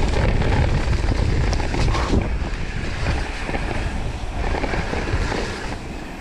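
Wind buffeting a handlebar-mounted action camera's microphone as a mountain bike runs down a muddy dirt trail, with the tyres and bike rattling over the ground in short clicks and knocks. The rumble eases somewhat after about three seconds.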